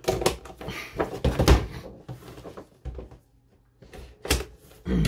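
Scissors snipping and a cardboard-and-plastic toy box being handled, giving a series of short clicks, knocks and rustles. The loudest clatter comes about a second and a half in, with a few more knocks near the end.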